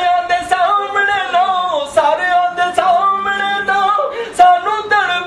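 A man singing unaccompanied, holding long notes that bend and slide down in pitch between phrases.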